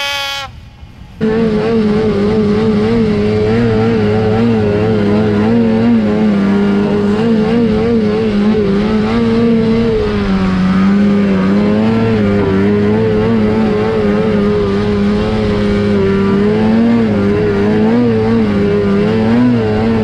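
Two-stroke snowmobile engine revving up, rising in pitch, then from about a second in another snowmobile engine heard from on board, held at high, fairly steady revs with small rises and dips in pitch as the throttle is worked.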